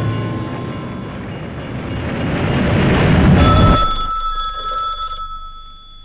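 A loud rumbling rush swells up and cuts off abruptly about three and a half seconds in. A telephone then rings once, a steady ring lasting under two seconds.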